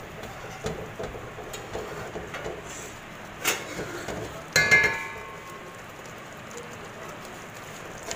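Silicone spatula stirring a thick sweet vermicelli mixture in a steel pot, with soft scraping and small knocks. About halfway through there is a sharp clank on the steel pot that rings briefly, the loudest sound.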